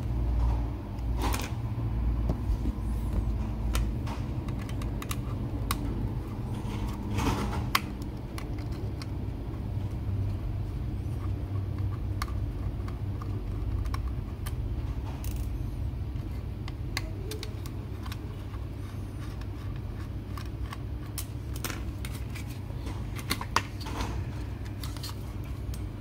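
Scattered small clicks, taps and scrapes of a small screwdriver and metal drive casing being handled, as the mounting bracket is worked off a laptop's slim optical drive, over a steady low hum.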